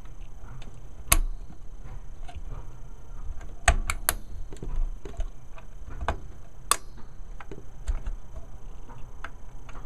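Plastic push-pins of a stock Intel CPU heatsink snapping into the motherboard's mounting holes as they are pressed down: several sharp clicks, the loudest about a second in and between about four and seven seconds in, with smaller ticks of handling between.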